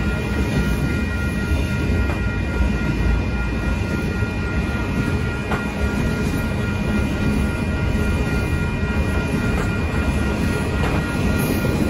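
Double-stack intermodal freight cars rolling past at a grade crossing: a steady, heavy rumble of steel wheels on the rails. A few steady high tones sit above the rumble.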